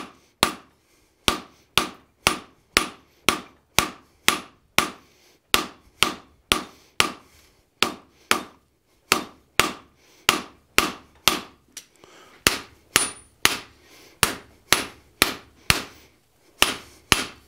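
Hand hammer striking a glowing-hot steel bar on the anvil horn in a steady rhythm, about two blows a second, each with a short metallic ring. The bar is being drawn out into a long, tapered point.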